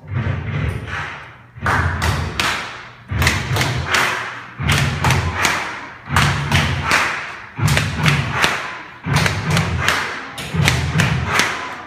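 Background music with a heavy thumping beat: a bass-heavy phrase with sharp percussion hits that repeats about every one and a half seconds, starting abruptly.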